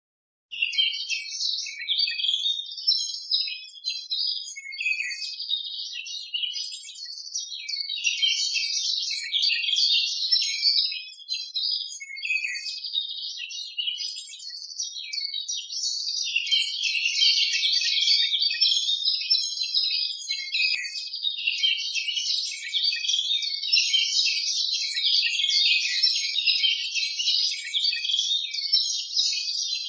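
Dense, continuous chirping of small birds, high-pitched with no low sounds, starting about half a second in after a brief silence.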